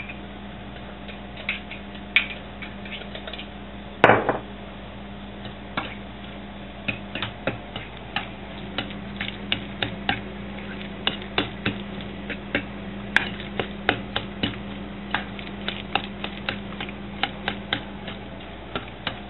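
A metal utensil stirring crumbled tofu in a stainless steel bowl, clinking and scraping against the bowl in short irregular clicks that come more often in the second half, with one louder clink about four seconds in. A steady low hum runs underneath.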